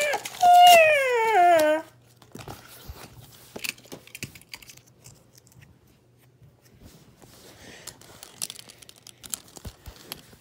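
A loud drawn-out whine, held and then falling in pitch, comes twice in the first two seconds. After it comes faint tearing, crinkling and small clicks of a diecast monster truck's cardboard-and-plastic blister pack being torn open.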